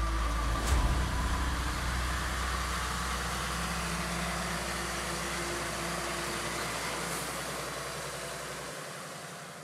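Scania 770 hp V8 diesel truck engine running with a deep, steady rumble that fades away over the last few seconds.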